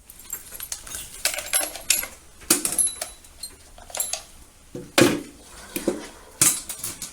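Scattered light metallic clinks and rustling, the sound of handling small metal gear such as keys or cuffs, irregular and unhurried with a few louder clacks.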